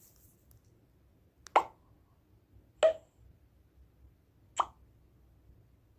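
A pop-up sound effect from a video editor's library, played three times as it is auditioned. It gives three short pops, the first two over a second apart and the third nearly two seconds later.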